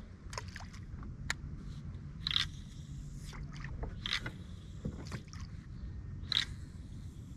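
Native Propel pedal-drive kayak under way: a low steady hum from the drive, with water swishing along the hull every couple of seconds and small clicks and knocks.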